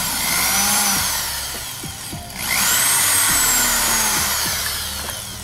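Cordless drill boring into a small aluminum bracket, run in two bursts with a short stop between; in each the motor's whine rises and then falls in pitch, the second burst longer and fading out.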